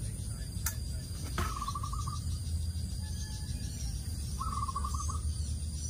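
A bird's short trilled call, heard twice a few seconds apart, over a steady low rumble, with two sharp clicks about a second in.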